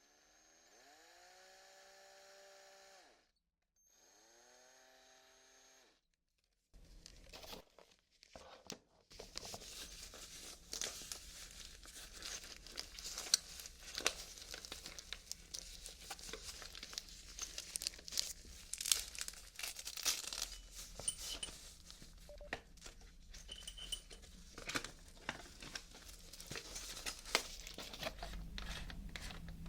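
Small electric drill motor whirring quietly in two short bursts, each spinning up to a steady whine. Then a long run of dense crackling and crinkling with many sharp clicks.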